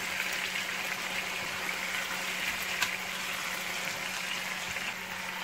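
Marinated chicken pieces frying in hot oil in a pan, a steady sizzling hiss, as they are turned over with silicone tongs; one light click near the middle.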